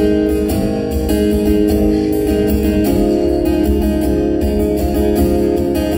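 Acoustic guitar strummed in a steady rhythm, with no singing; the chord changes about halfway through.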